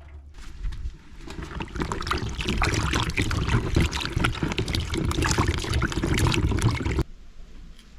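Water pouring and splashing, a dense crackling trickle that cuts off abruptly about seven seconds in.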